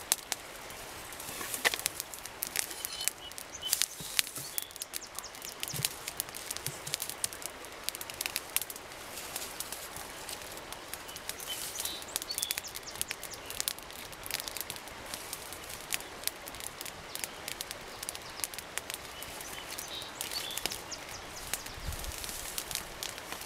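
Small fire of dry twigs and tinder crackling, with many sharp irregular snaps and pops.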